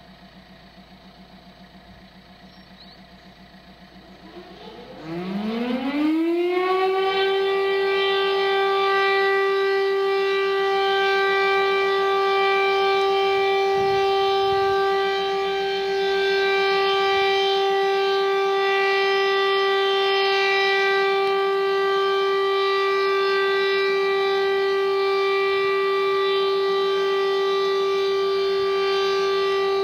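Demay-modernised French civil-defence alert siren winding up to full pitch about four seconds in, then holding one steady, continuous tone: the end-of-alert signal, the all-clear. A faint steady hum is heard before it starts.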